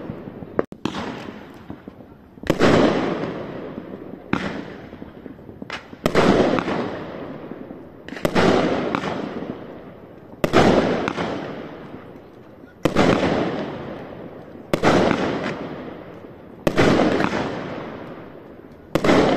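Lesli Fireworks Snow Shadow: Red and Silver, a 32-shot 30 mm fireworks cake, firing its shells one at a time, about one every two seconds. Each sharp bang trails off over a second or two.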